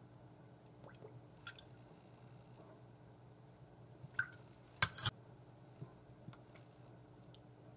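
Soy sauce and then ketchup squeezed from plastic squeeze bottles into a metal spoon over a bowl: quiet handling sounds, with a few sharp clicks about four to five seconds in, where the bottles are swapped.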